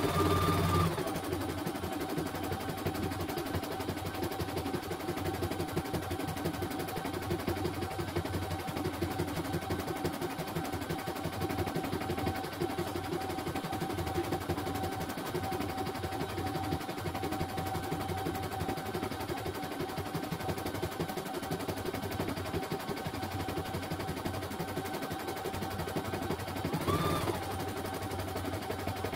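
CNY E900 computerised embroidery machine stitching a design: a fast, even run of needle ticks over a steady motor whine, played back at double speed. A brief higher, louder whine comes at the very start and again near the end.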